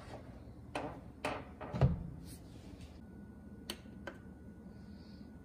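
The hinged crisping lid of a Ninja Foodi multi-cooker being swung shut: a few light knocks, then a heavier thud as it closes about two seconds in. A faint steady high whine then sets in, and two light clicks follow as the control-panel buttons are pressed.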